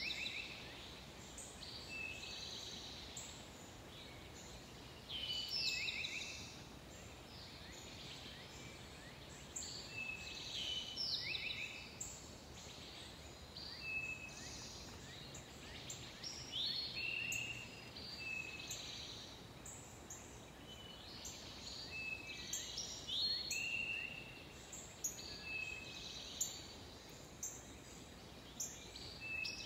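Songbirds singing in a yard, short whistled notes and quick downward-slurred phrases from more than one bird, overlapping and repeating every second or two, over a faint steady outdoor hiss.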